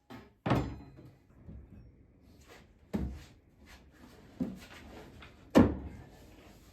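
Wooden knocks and thuds as a hand-cut piece of inner gunnel is set in place and test-fitted against the boat's transom: four separate knocks, the loudest about half a second in and near the end, with quieter handling between.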